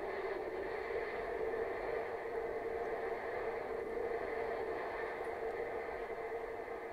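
Steady rushing of water and air blasting up out of a manhole and spraying across a flooded street, from a played-back video clip. It is the sound of a surging, surcharged storm sewer whose grade line has risen above the ground.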